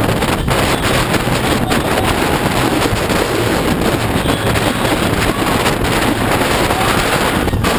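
Wind rushing steadily over the microphone of a camera on a moving motorcycle, with the motorcycle's engine and road noise beneath it.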